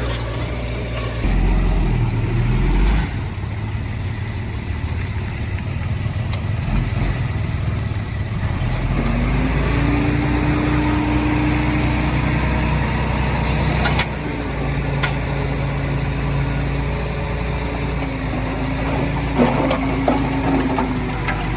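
Heavy diesel earthmoving machine's engine running under load. It works harder for a couple of seconds early on, then a rising tone comes in about nine seconds in and holds until a sharp clank at about fourteen seconds. A few metallic clatters come near the end.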